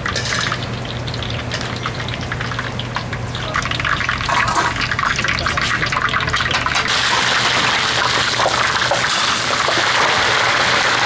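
Hot oil sizzling and crackling as battered fritters deep-fry in a wide wok. The sizzle turns louder and denser about seven seconds in, as a wok packed with fresh batter bubbles hard.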